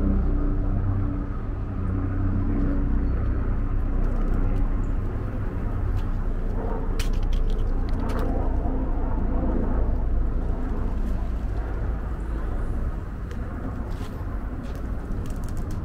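Outdoor city ambience: a steady low rumble of passing traffic, with an engine hum over the first few seconds. Faint passing voices come in about halfway, along with a few light clicks.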